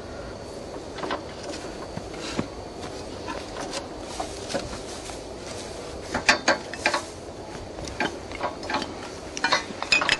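Irregular clicking and clanking from the gear of a water-well drilling rig, with a denser run of sharp clicks about six seconds in and again near the end.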